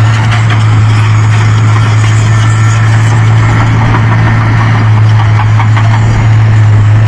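Large excavator's diesel engine running steadily, a loud, even, deep hum.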